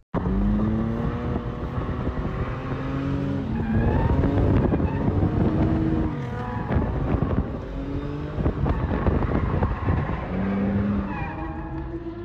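Lexus IS300's straight-six engine revving up and down repeatedly while the car drifts, with the tyres sliding, heard from inside the cabin.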